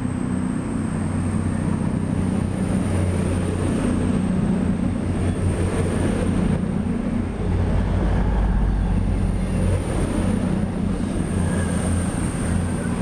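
Virgin Voyager diesel multiple unit passing close by at speed. The steady drone of its underfloor diesel engines mixes with the rush of wheels on rail as the carriages go by.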